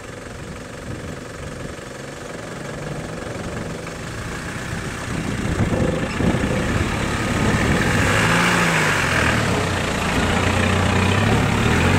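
Land Rover Defender engine working at low speed as the truck crawls through a deep muddy rut, growing louder as it comes closer. In the last few seconds the revs rise and fall as it climbs out of the rut.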